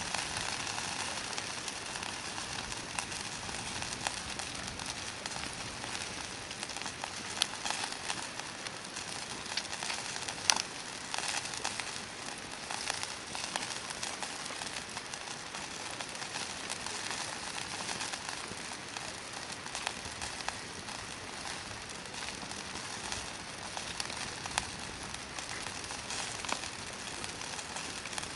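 Hardwood campfire burning, crackling steadily with many small pops and one sharper, louder pop about ten seconds in.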